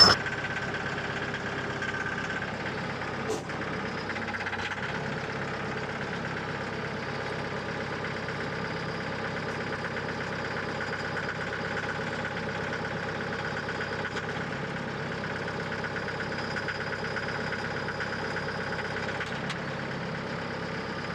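An engine idling steadily, with one brief click about three seconds in.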